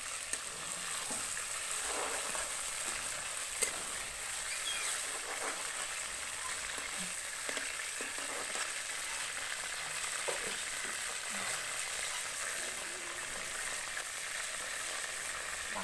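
Boal catfish pieces sizzling steadily as they fry in oil in an iron kadai, with a few sharp clicks of a metal spatula against the pan.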